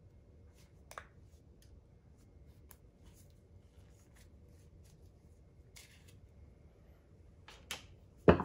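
Small handling clicks and rustles of parts on a workbench over a faint steady hum, then two sharp knocks near the end, the second much louder, as something is set down or knocked on the bench.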